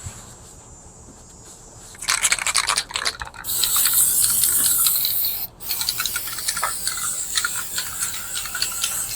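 Cicadas drone faintly and steadily. About two seconds in comes a short scratchy noise, then an aerosol can of spray wash-and-wax hisses in long sprays with a brief break past the middle, with rubbing strokes in the later part.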